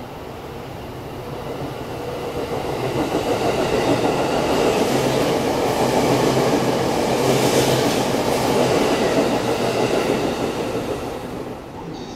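E257-5500 series electric train passing through a station at speed without stopping, the running noise of its wheels and motors. It builds over the first few seconds, stays loud through the middle and drops away near the end.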